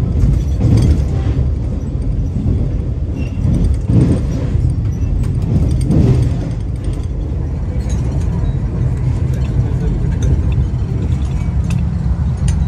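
Vande Bharat Express electric multiple-unit train running: a steady low rumble of wheels on track, with heavier thumps about a second in and again around four and six seconds.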